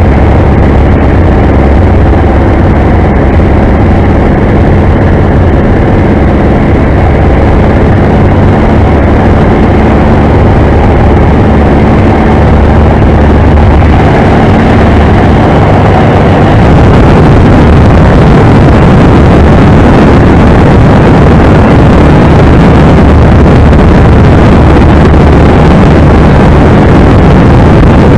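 Light aircraft's piston engine and propeller running steadily in cruise flight, heard from the open cockpit as a loud, even drone. About sixteen seconds in it gives way to a louder, rougher rush of noise.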